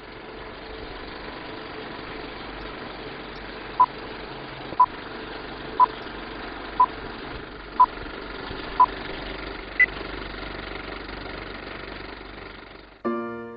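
Old-film countdown leader sound effect: a steady projector whir and rattle with short beeps once a second, six in all, then one higher-pitched beep. Soft piano music comes in near the end.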